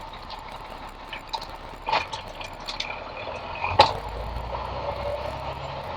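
Tow truck driving, heard from inside the cab: a steady engine and road hum with a low rumble, broken by a few sharp knocks or rattles, the loudest about four seconds in.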